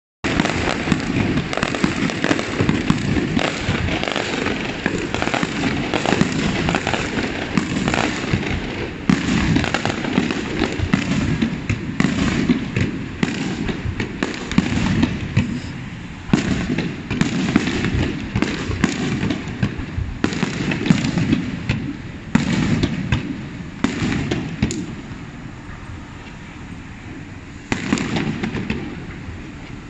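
Aerial fireworks shells bursting one after another: many sharp bangs, each trailed by a rumbling echo. They come thick for most of the stretch, then thin out and grow quieter near the end, with one more burst just before it stops.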